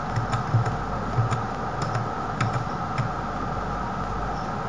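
Computer keyboard key, the right arrow, tapped about ten times at an uneven pace to step an animation timeline forward a frame at a time. The taps stop about three seconds in, over a steady background hum.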